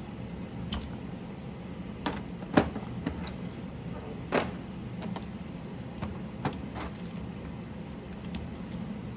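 Irregular clicks and knocks from mechanical keyboard switches and keycaps being handled and fitted, about a dozen, the loudest about two and a half seconds in. A steady low hum runs underneath.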